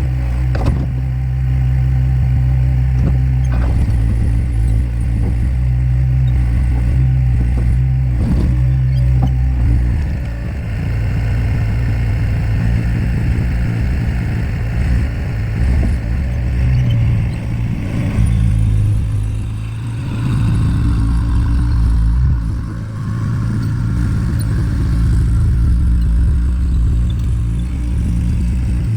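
Caterpillar skid steer's diesel engine running at working revs, its note shifting as the machine is worked, with a few sharp metal clanks in the first several seconds.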